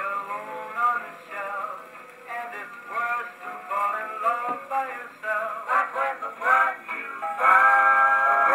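A record playing on a circa-1918 Columbia Grafonola acoustic phonograph: a man singing with accompaniment, thin and narrow in range with no deep bass, ending on a long held note.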